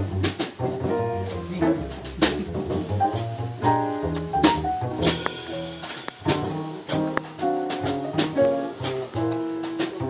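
Live acoustic jazz: piano playing over a plucked upright double bass, with sharp drum and cymbal strokes.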